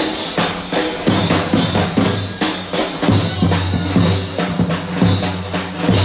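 Marching brass band playing a march: trombones and horns over bass drum and snare drum, with a steady beat about once a second.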